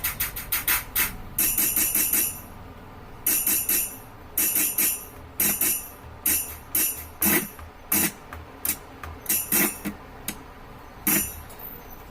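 Roland SPD-20 percussion pad being played through its output, its pads struck to sound short, bright, jingly tambourine-like percussion. The hits come irregularly, some in quick runs and others singly, and thin out near the end.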